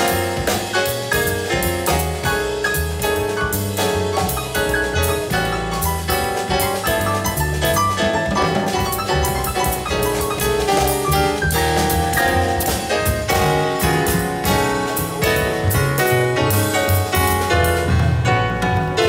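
Live jazz quartet playing: upright bass, keyboard and drum kit with cymbals, a steady swinging groove.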